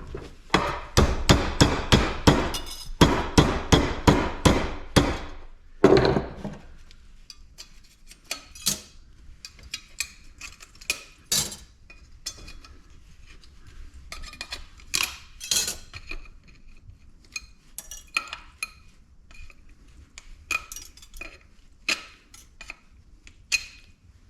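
Metal scrap being knocked apart: a quick run of sharp metal-on-metal knocks, about three or four a second, for the first five seconds or so. One heavier knock follows, then scattered lighter clinks and taps as the aluminum parts are handled.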